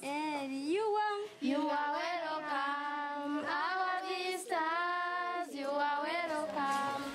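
High voices singing an unaccompanied melody, holding long notes with gliding, wavering pitch between short breaths.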